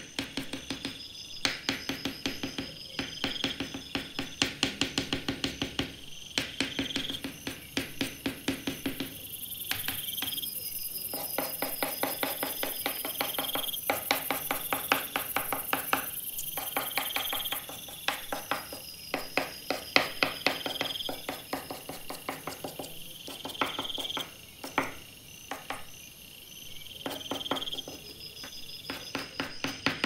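Background music with a short phrase recurring about every two seconds.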